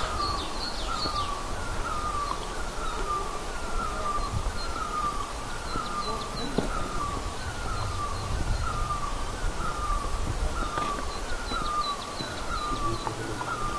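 A bird calls one short, slightly falling note over and over, evenly, about twice a second, over a low rumble.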